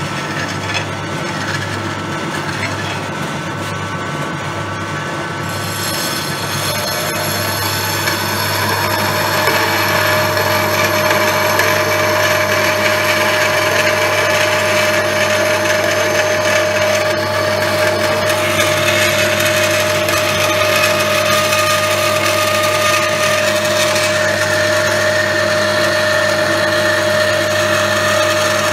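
Jet variable-speed bandsaw running, its blade biting into a 4 mm 12C27 stainless steel knife blank from about seven seconds in. The cut goes on steadily, with a high whine over the cutting noise from about ten seconds in.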